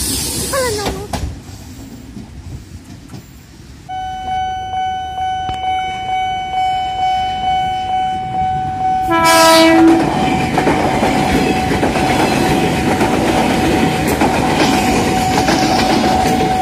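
JR 203 series electric commuter train approaching and passing close. A steady whine from its traction equipment runs over wheels clattering on the rails in a pulsing beat that grows louder. About nine seconds in comes a short, loud horn blast, followed by the full roll of the cars going by. The first second is the end of another train passing, before a cut.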